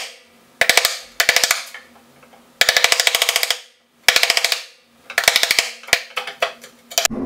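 Wood chisel chopping a notch into plywood: six quick bursts of rapid sharp taps, separated by short pauses.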